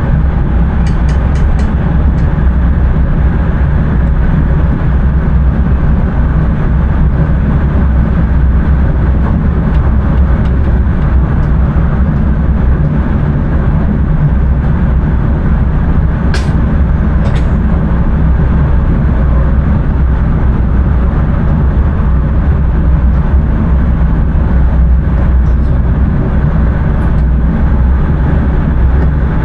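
Intercity train running steadily, heard from inside the driver's cab: a constant low running noise of wheels on track and traction equipment. A few faint clicks come about a second in, and two sharper ones about halfway through.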